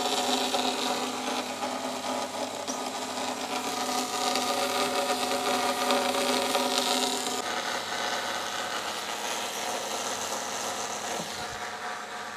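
Band saw running and cutting through a thick acrylic rod dry, without coolant: a steady motor hum under the hiss of the blade in the plastic. The hum changes about seven seconds in.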